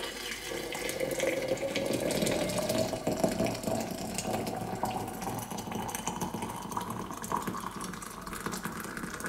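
Hot water poured in a steady stream from an electric kettle into a stainless-steel Stanley vacuum food jar, the tone of the filling jar rising steadily as it fills. The jar is being preheated with hot water.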